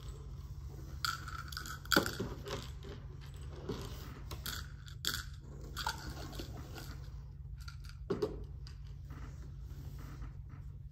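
Small hard objects clicking and knocking on a tabletop as they are handled and gathered by hand, with a sharper knock about two seconds in and another about eight seconds in, over a steady low hum.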